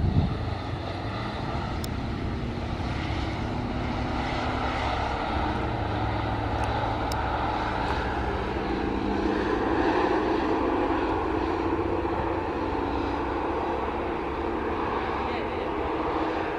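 Steady engine noise across an airfield: a low rumble with a faint whine, swelling slightly around the middle.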